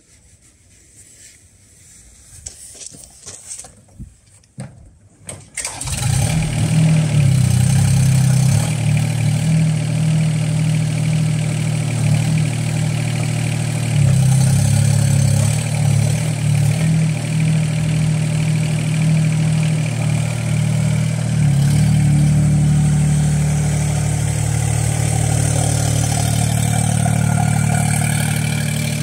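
Small Yanmar diesel engine of a mini excavator starting about five seconds in, after a few knocks, then running steadily. Its note shifts a little now and then as the machine works.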